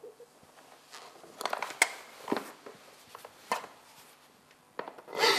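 A woman crying: sniffles and shaky sobbing breaths every second or so, with the loudest, a wet sob, near the end.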